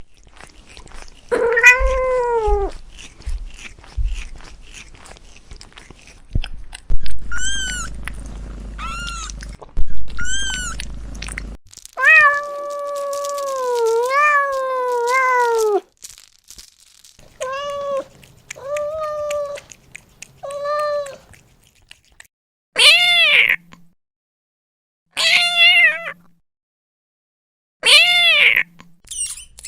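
Domestic cat meowing repeatedly: about a dozen separate meows, mostly short and some high and thin, with one long, wavering meow near the middle.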